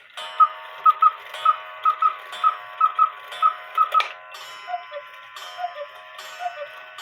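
A 1950s quail-and-cuckoo clock striking over its ticking. The quail pipes call four times, three quick notes each, then the cuckoo starts its falling two-note calls, about one a second.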